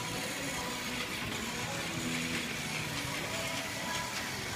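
Background music over the steady hubbub of a busy indoor play area.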